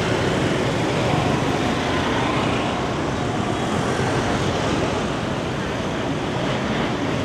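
Busy city-street traffic: a steady wash of motor-scooter and car engines and tyre noise.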